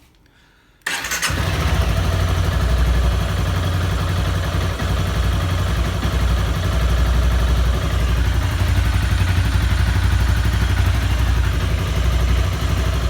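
Honda CBR250R's single-cylinder engine starting up about a second in and then running steadily, started after sitting unused for a long time.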